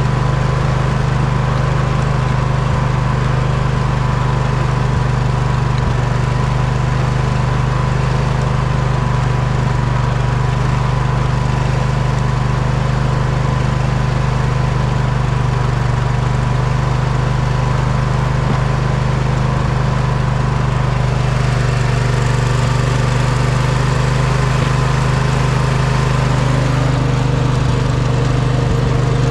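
Poulan riding mower engine running steadily at a constant speed, with a strong low hum.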